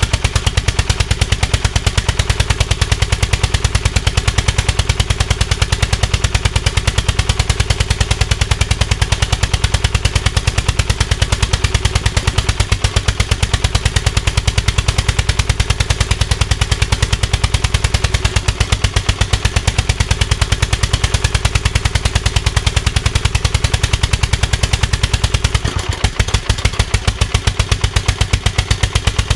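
Small lawn tractor engine, newly fitted in a Craftsman YS4500, running at low speed with a steady, rapid exhaust beat that falters briefly near the end. It won't rev up and is running rich, which the owner puts down to valve trouble in a damaged cylinder head.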